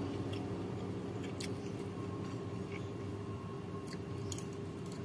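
A few light clicks of a metal spoon against a ceramic plate while eating, over a steady low background hum.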